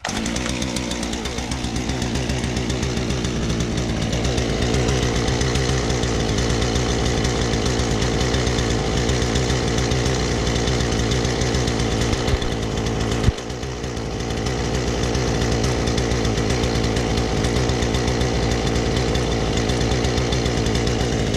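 Husqvarna 236 two-stroke chainsaw engine catching on a pull of the starter cord and settling into a steady idle, with one brief dip in speed about thirteen seconds in.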